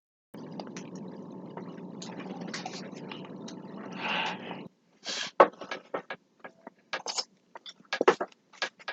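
Thick red glitter glue squeezed and poured out of a plastic kit container into a bowl, a steady gurgling pour for about four seconds. Then scattered light clicks and taps of the plastic container being handled.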